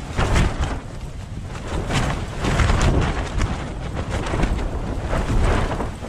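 Strong wind gusts battering a Tarptent ProTrail ultralight tent, heard from inside: the tent fabric flaps and snaps again and again over a heavy, surging wind rumble on the microphone.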